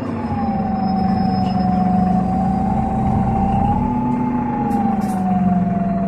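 Solaris Urbino 12 CNG bus heard from inside the cabin: the Iveco Cursor 8 gas engine and Voith automatic driveline are running at low speed. A steady whine sits over the engine rumble and wavers only slightly in pitch.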